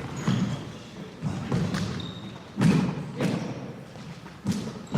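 Basketballs bouncing on a hardwood gym floor: about six uneven thuds, each echoing in the large hall.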